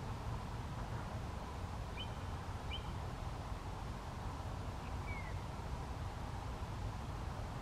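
Faint short bird chirps over a steady low outdoor rumble: two quick chirps about two seconds in, and a short falling note about five seconds in.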